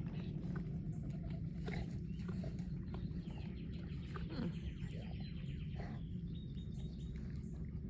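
A bird giving a rapid high trill for about three seconds, with a shorter trill near the end, over a steady low rumble.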